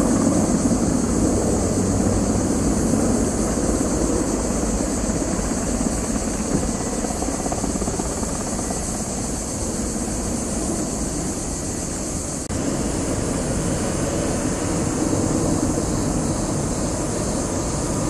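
Firefighting helicopter flying low overhead, its rotor and engine a steady drone, with a steady high hiss alongside. The sound shifts slightly about two-thirds of the way through.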